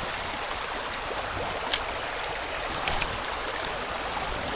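Creek water flowing steadily, with two short clicks about two and three seconds in.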